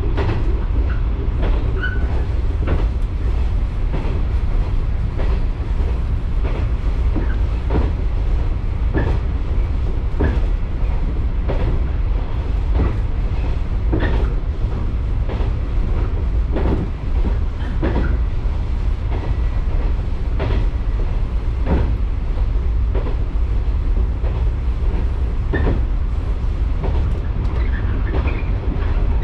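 Shinano Railway local electric train running along the line, heard from inside the rear car: a steady low rumble with a clack from the rail joints about every second and a bit.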